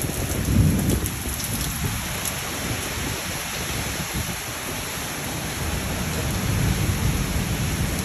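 Heavy rain and hail beating down in a thunderstorm, with strong wind in the trees. A low rumble swells briefly about half a second in and builds again near the end.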